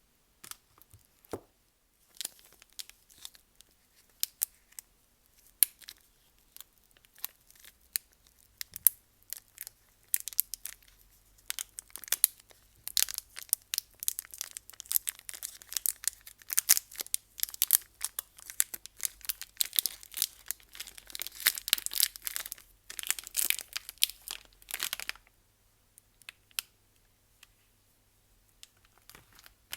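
Soap wrapping being torn open and crumpled by hand. Scattered crackles at first, then dense crinkling and tearing for about fifteen seconds, stopping well before the end.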